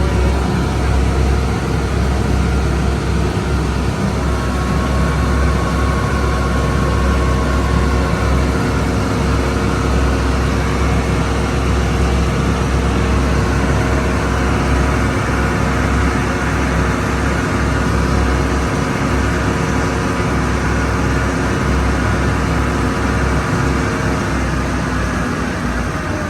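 Tour boat's engine running steadily under way, heard from on board as a deep, even drone.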